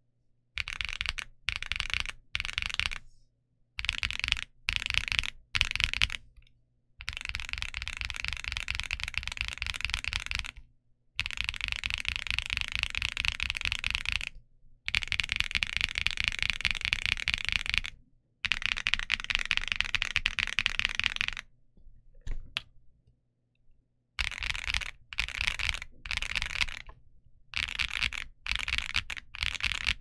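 Keydous NJ87 Pro mechanical keyboard with Kailh Box Coffee switches and PBT keycaps being typed on. Short bursts of keystrokes at first, then long runs of rapid clacking lasting several seconds each, separated by brief pauses.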